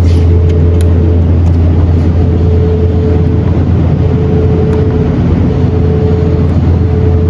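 Basement jet ventilation fan running with a loud, steady drone: a deep hum with a fainter higher tone above it that wavers and drops out briefly now and then.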